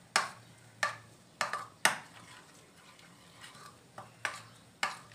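A metal spoon stirring curd and spice powders in a bowl for a marinade, with about eight sharp, irregular clinks and scrapes of the spoon against the bowl.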